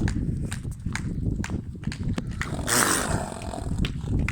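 Horse hooves knocking on the ground in irregular steps, over a low rumble. A short rushing burst comes a little before the three-second mark.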